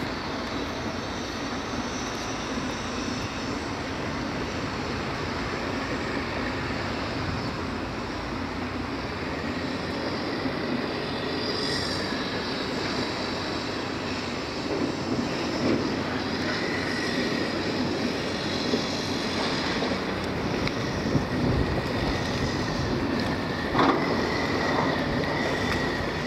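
Small motorboat under way: its engine drones steadily under a constant rush of water and wind. A few short knocks come in the second half.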